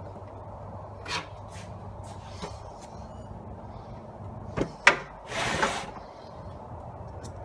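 Parts of a DeWalt DW734 planer being handled and fitted by hand: a few light clicks, then two sharp knocks about four and a half seconds in, then a brief scraping rasp under a second long, over a low steady hum.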